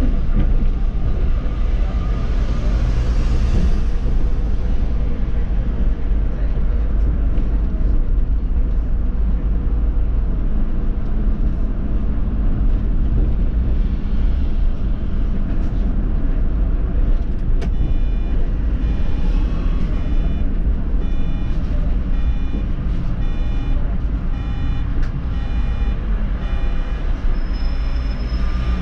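Solaris Urbino 18 articulated city bus driving, its engine and drivetrain giving a steady low rumble. A brief hiss comes near the start, and from about two-thirds through a regular ticking repeats about twice a second.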